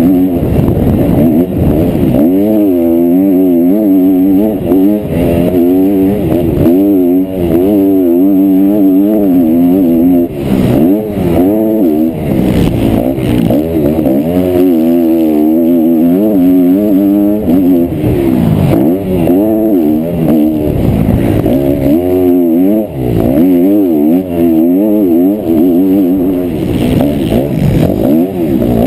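Motocross bike engine at race pace, heard from the onboard camera, its pitch climbing and falling over and over as the throttle is opened and shut, with several short drops where the throttle is closed.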